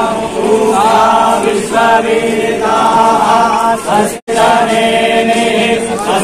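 A group of voices singing a slow, chant-like song in unison over a steady drone. The sound drops out for an instant about four seconds in.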